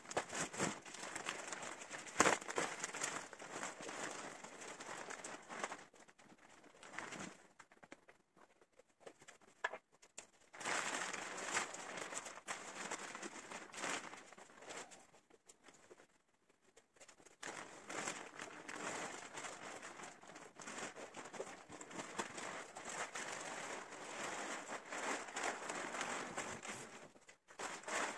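Clear plastic wrapping rustling and crinkling as it is pulled off a roll-packed spring mattress, in long stretches with two short pauses.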